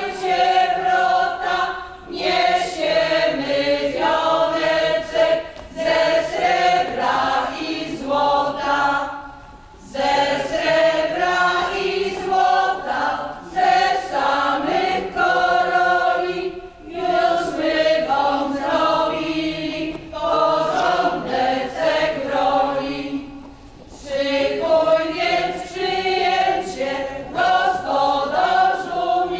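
A group of men's and women's voices singing a Polish folk song together as a choir, in long phrases with short breaks between them.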